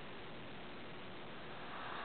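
A sleeping pet snoring softly: one short, breathy snore near the end over a steady background hiss.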